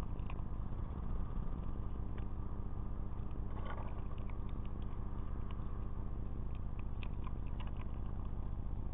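A steady low hum from the recording device carries through. Over it come scattered faint clicks and crackles as a marten rummages and chews in a bird feeder's tray of seeds, peanuts and raisins.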